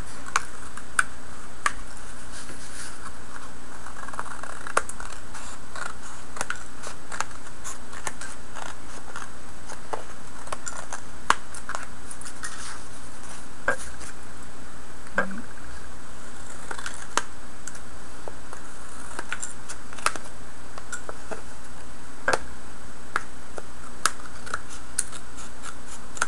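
Scissors snipping off the ends of paper strips: irregular single snips, often a second or more apart, over a steady background hiss.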